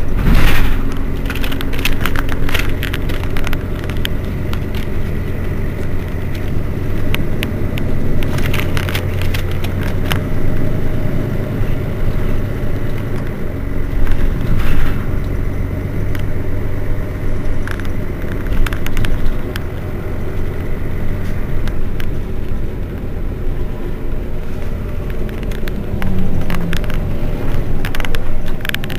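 Mercedes-Benz Citaro Facelift city bus's rear-mounted engine idling steadily while the bus stands still, with occasional clicks.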